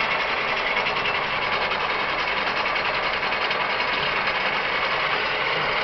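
1988 6T82G horizontal milling machine running, its drive and gearbox giving a steady, even mechanical noise.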